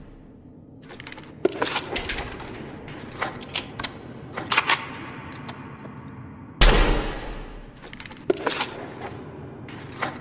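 Machine gun sound effect: the tail of a burst dies away, followed by scattered sharp metallic clicks and clinks. A second short loud burst comes about six and a half seconds in and fades over about a second, then more scattered clicks follow.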